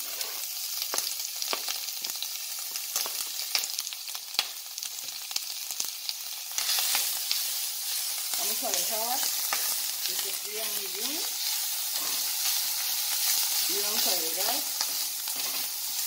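Chopped bacon frying in a stainless steel pan, sizzling with scattered crackling pops as its fat renders; the sizzle grows louder about halfway through. In the second half a spatula stirs it, scraping the pan in short squeaky strokes every couple of seconds.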